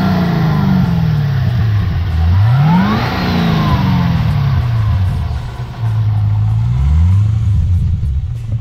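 2012 Chevrolet Camaro ZL1's 6.2-litre supercharged LSA V8 being free-revved while parked. The revs fall away, climb sharply about two and a half seconds in and die slowly back down, then give a smaller blip near the end. A higher whine rises and falls with each rev.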